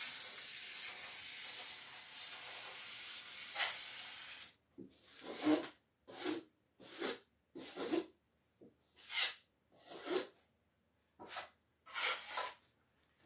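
A drywall knife scraping joint compound along plasterboard seams. There is a steady rubbing scrape for about the first four seconds, then separate strokes about once a second.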